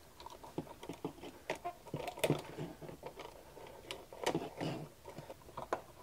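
A screwdriver loosening the terminal screws of a standard wall outlet, with irregular small clicks and scrapes of metal and plastic as the wires are worked free.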